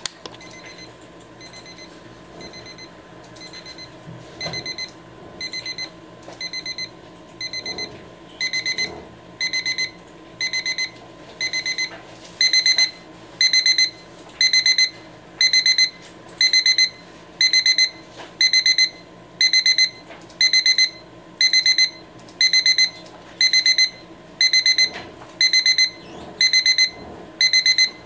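RHYTHM digital alarm clock's progressive (crescendo) alarm: bursts of rapid high-pitched beeps about once a second. The bursts get louder in steps, starting faint and jumping up about four, eight and twelve seconds in, then staying at full volume.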